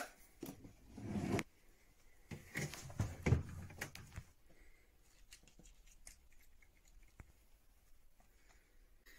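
Kitchen handling noises: cutlery rattles as a spoon is taken from a drawer, then there is a louder rustle and knock about three seconds in as the fridge is opened. After that there are only faint small clicks and taps while food is handled.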